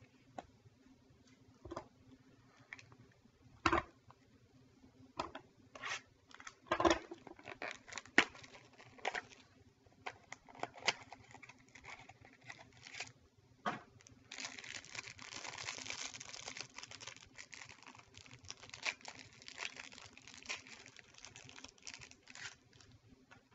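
A trading-card pack wrapper being torn open and crinkled by hand, with irregular sharp snaps and rustles. A denser stretch of crinkling comes about two-thirds of the way through.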